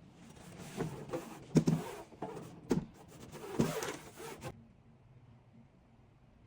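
Rustling and scraping of food containers and packaging being handled, with three clunks as items are set down or knocked. It stops about two-thirds of the way through, leaving faint room tone.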